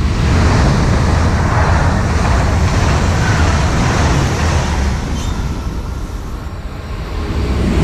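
ICE high-speed electric train passing at speed close by, a loud rushing roar of wheels on rail and air with a heavy low rumble. The roar eases after the train has gone, then swells again near the end as another train approaches.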